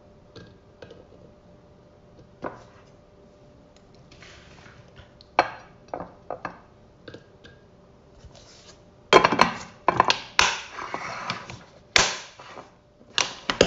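Dishes and utensils handled in a kitchen: scattered light clinks and knocks, turning into louder, busier clattering from about nine seconds in, with a sharp knock near the end.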